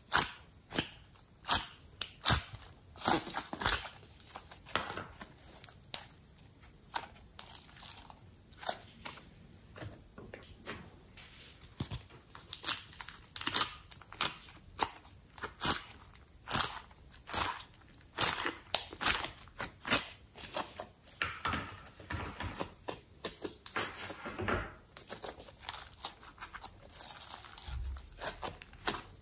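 Sticky slime and soft clay pressed, scraped and peeled out of a plastic mold tray by hand, then stretched: a run of sharp, uneven crackles, clicks and squelches.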